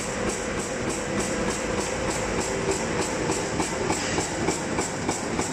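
High-speed plastic garbage-bag-on-roll making machine running, a steady mechanical noise with regular strokes at about three a second.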